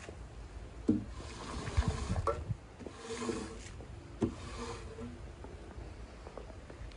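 A squeegee dragged in repeated strokes across a soaked rug, scraping and swishing dirty soapy water off the pile, with brief squeaks of the blade among the strokes.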